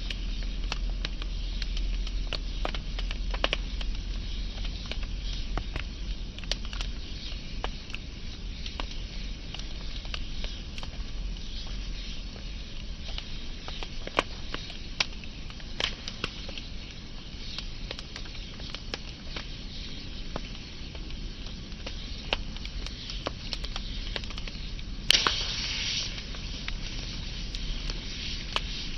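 Burning wood fire crackling, with frequent sharp pops over a soft steady hiss and low rumble. Near the end one louder crack is followed by about a second of hissing.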